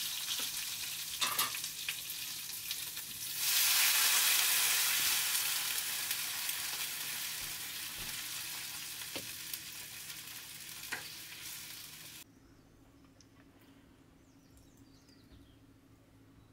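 Food sizzling as it fries in hot oil in a pan on a wood-fired stove, with a few sharp spoon clinks. The sizzle jumps louder a few seconds in, fades slowly, then stops abruptly about two-thirds of the way through, leaving a quiet background with faint high chirps.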